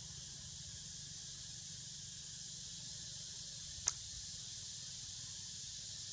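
Steady high-pitched insect buzzing with a low background rumble, and one sharp click about four seconds in.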